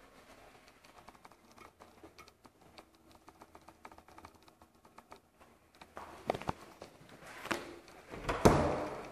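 Light ticks and taps of movement in an empty room with hard surfaces, then a few louder knocks. Near the end comes the loudest sound: a metal lever door handle clunking and a door latch releasing as an interior door is opened.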